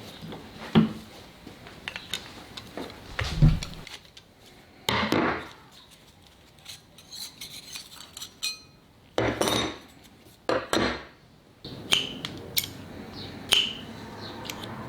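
Metal parts of a new Luban No. 4 bench plane clinking, knocking and scraping as it is handled and set up, with a few brief metallic rings.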